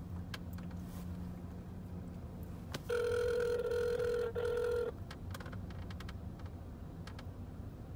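Telephone ringback tone heard through a cell phone's speaker as an outgoing call rings: one steady ring about two seconds long, starting about three seconds in.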